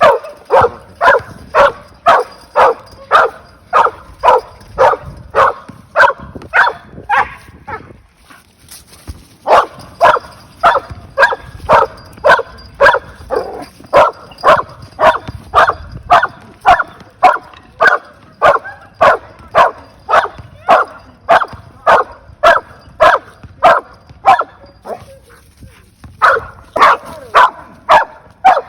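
A dog barking over and over in a steady rhythm of about two barks a second. The barking stops briefly about 8 seconds in and again near the end.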